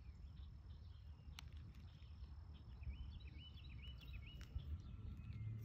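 Quiet outdoor ambience: a low steady rumble with a faint high insect drone, and about three seconds in a bird sings a quick phrase of about five short chirps.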